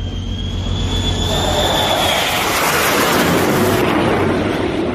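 F-35B Lightning II jet passing in a fly-by: a high engine whine that rises slightly and fades about two seconds in, while the rushing jet noise swells around three seconds in, over a low rumble.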